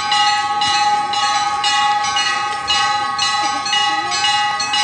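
Temple bells being struck repeatedly, about two strikes a second. Each stroke rings out over a steady bell tone that keeps sounding underneath.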